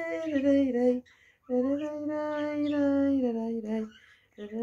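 A woman singing to herself in long held notes: a one-second phrase, then a longer one of about two seconds after a short pause, each sliding down in pitch at its end.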